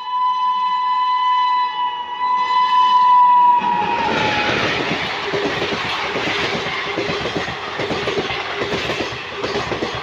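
WAP4 electric locomotive's horn sounding one long shrill blast that grows louder and drops in pitch as the locomotive passes about three and a half seconds in. Then comes the rumble and clatter of the coaches' wheels over the track as the express runs through at full speed.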